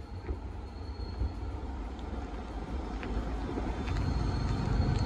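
Ride noise heard from inside a moving auto-rickshaw: a steady low engine and road rumble with light rattles, growing slowly louder toward the end.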